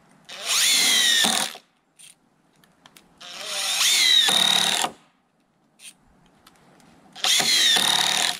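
Cordless drill driving three screws through wooden cleats into pressure-treated lumber bench boards: three separate runs of about one to two seconds each, the motor pitch falling during each run.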